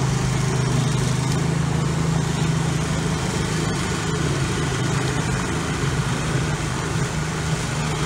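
An engine running at a steady low drone, with the hiss of hot water poured from a kettle onto icy concrete steps.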